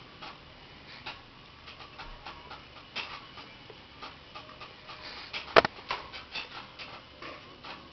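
Turtles scuffling on a hard surface: irregular light clicks and taps of claws and shells, with one sharp knock about five and a half seconds in.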